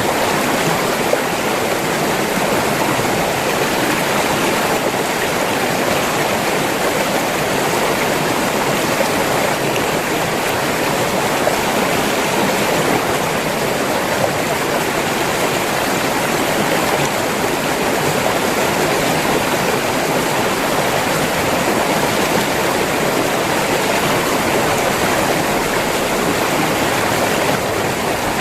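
River water flowing and rushing over rocks, a steady, unbroken rush.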